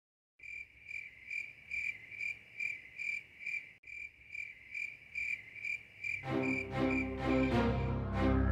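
Crickets chirping at night, an even high pulse of about two chirps a second. About six seconds in, low held music notes swell in underneath.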